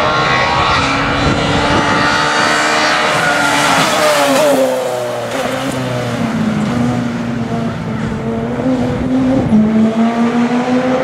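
Peugeot 207 S2000 rally car's 2.0-litre naturally aspirated straight-four running hard at high revs. Its pitch drops sharply about four seconds in, then climbs again as the car accelerates away.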